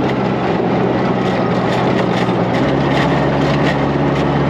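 Open buggy built on a 1999 Chevrolet Tracker driving at speed over a dirt road: the engine runs at a steady drone under dense road and tyre noise, with faint scattered rattles.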